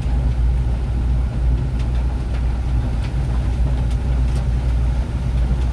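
Steady low rumble of a moving vehicle heard from inside the cabin: engine and tyres running on wet pavement, with a hiss over the rumble.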